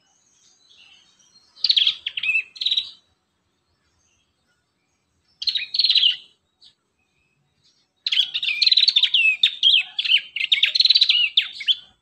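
Prinias (prenjak) singing in three bouts of rapid, chattering high notes. The first two bouts are short; the last, starting about two-thirds of the way in, runs about four seconds.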